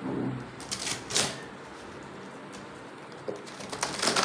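Cardboard flaps of a large TV box being pulled open, with sharp crackling and rustling in two bursts, about a second in and again near the end.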